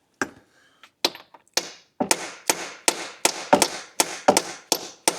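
Small hammer striking a socket held on a new core plug, tapping it into the engine block of a Vauxhall Insignia 1.8 petrol: sharp metal-on-metal taps, a few spaced out at first, then a steady run of about two to three a second.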